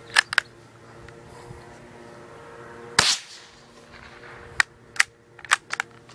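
A single shot from a bolt-action .22 rifle about three seconds in: a sharp crack with a short echo. Smaller sharp metallic clicks come twice near the start and in a quick cluster near the end, fitting the bolt being worked to eject and chamber a round.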